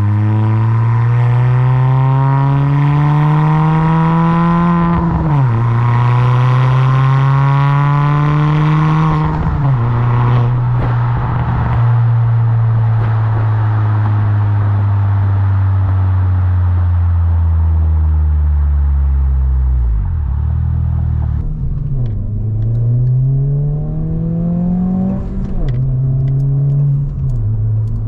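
Exhaust of a 2022 Honda Civic Si's 1.5-litre turbocharged four-cylinder, fitted with a 27WON downpipe, front pipe and cat-back, pulling through the gears: the note climbs and drops sharply at two upshifts in the first ten seconds, holds steady for a stretch, falls away about twenty seconds in, then climbs to one more upshift.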